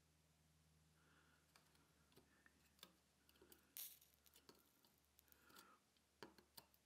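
Near silence: faint room hum with a few faint, short clicks and ticks, the clearest a little before four seconds in and two more near the end.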